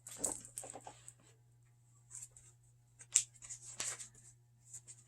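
Faint rustling and light taps of a picture book's paper pages being handled, over a steady low hum.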